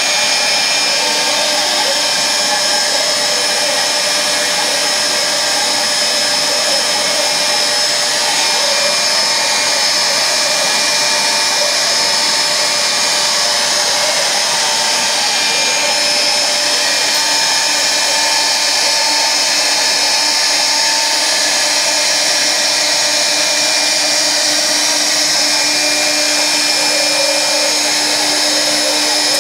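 Homemade CNC router carving wood: the spindle cutting steadily with a constant high whine, under the rush of dust extraction pulling chips through the hose at the cutter.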